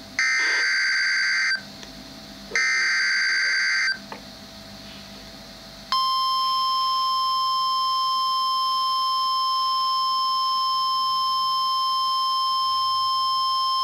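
Emergency Alert System SAME header data bursts, two harsh buzzing bursts about a second apart. About six seconds in, the steady 1050 Hz NOAA Weather Radio warning alarm tone begins and holds. Together they signal the start of a new National Weather Service warning broadcast.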